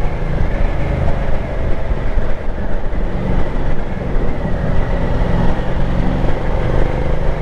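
Ducati Multistrada 1200's V-twin engine running steadily while under way, mixed with wind rushing over the microphone.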